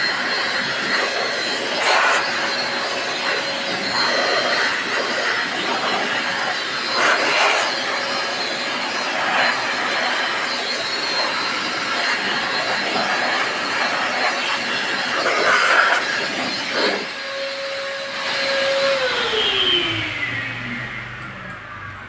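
Electric dust blower running steadily, blasting dust out of a computer case, with a few brief louder surges. About 19 s in it is switched off and its motor whine falls in pitch as it winds down.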